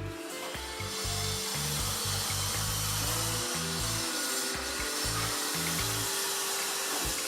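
Steady power-tool noise working wood, with background music underneath; no nail-gun shots.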